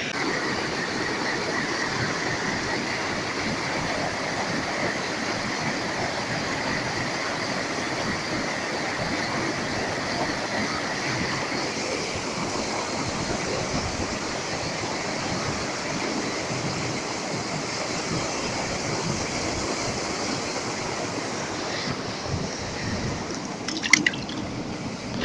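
Steady rush of flowing creek water, even and unbroken, with one sharp click near the end.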